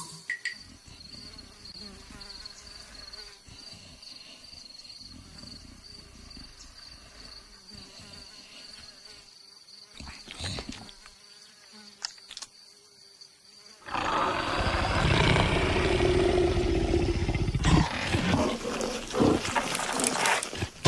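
Faint steady buzzing and a few light clicks, then about two-thirds of the way in a loud, rough animal roar starts and goes on, rising and falling.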